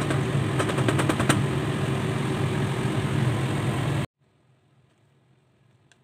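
Pork, chicken and vegetables sizzling in a pan as they are stirred, before any water is added, over a steady low hum. A quick rattle of spatula clicks against the pan comes about a second in. The sound cuts off suddenly about four seconds in.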